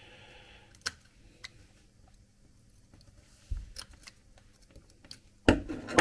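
Sharp scissors snipping off excess copper braid from coax cable: a few faint, scattered snips and clicks, with a louder bump near the end.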